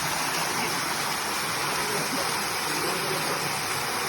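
Steady rushing of water from a waterfall and its stream, an even hiss with no breaks.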